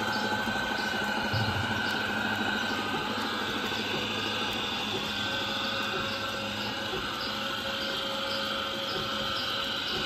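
Antique belt-driven line-shaft transmission and butter churn running steadily: flat belts turning pulleys and the churn's drive head, with a light, regular ticking a few times a second.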